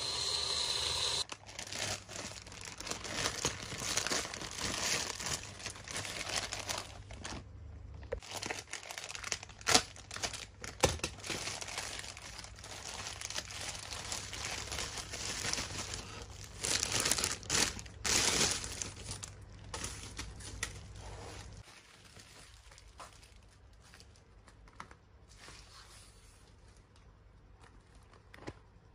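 Plastic mailer bag and bubble wrap crinkling as hands tear them open, with several sharp rips. After about 21 seconds it gives way to quieter handling of a cardboard box.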